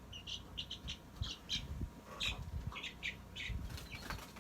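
Cochin bantam chicks peeping: a quick, irregular string of short, high chirps, with soft low bumps beneath.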